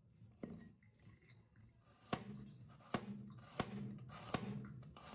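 Chinese cleaver slicing garlic cloves on a bamboo cutting board: about five sharp, separate knocks of the blade hitting the board, irregularly spaced, after a short pause about a second in.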